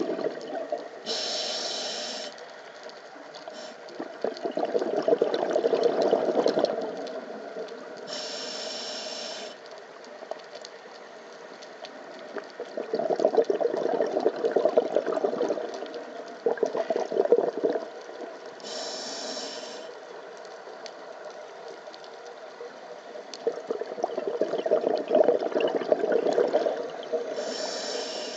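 Scuba diver breathing through a regulator underwater: a short hiss on each inhale, then a long, loud rush of bubbles on each exhale, the cycle repeating about every nine to ten seconds. Four inhales and three exhales.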